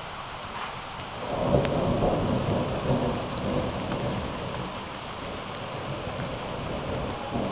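Thunder rumbling over steady rain. A rumble builds about a second in and rolls on for several seconds, and a smaller swell comes near the end.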